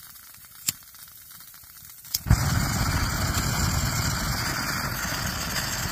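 A small click, then about two seconds in an old Coleman single-burner camp stove lights with a sudden whoosh and burns with a loud, steady hiss as it flares up on lighting.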